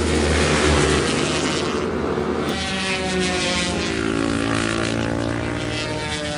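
A motorcycle engine runs with a steady drone that changes to a smoother, more even tone about two and a half seconds in.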